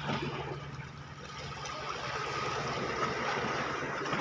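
Sea water washing and trickling, with a steady low motor drone underneath.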